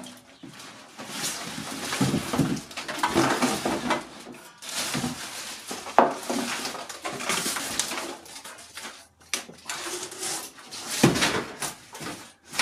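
Plastic wrap crinkling and a cardboard box rustling as a welder and its accessories are unpacked, with sharp knocks about six seconds in and again about eleven seconds in.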